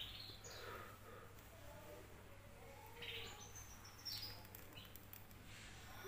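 Two-month-old domestic canary twittering (ngriwik): short chirps, then a run of thin, high notes that fall in pitch between about three and four and a half seconds in.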